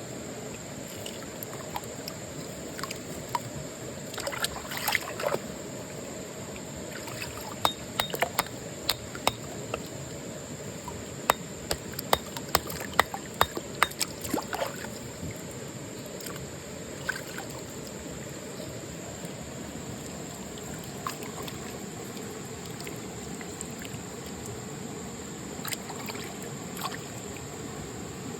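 Steady rush of flowing stream water, with a run of sharp clicks and knocks in the middle and a steady high-pitched tone throughout.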